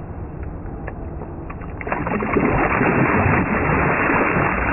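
A large mirror carp released at the water's edge kicks away, throwing a burst of splashing right onto the microphone. The splashing starts about two seconds in and runs on loudly, after a couple of seconds of quieter lapping and small clicks.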